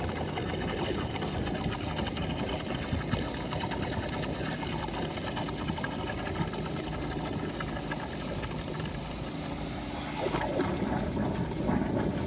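Gold dredge's engine-driven pump running steadily, with water gurgling as the suction nozzle draws muddy water in the hole. About ten seconds in, the water sound at the nozzle grows louder and splashier.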